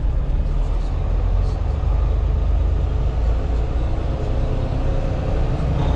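Semi-truck's diesel engine running, a steady low rumble.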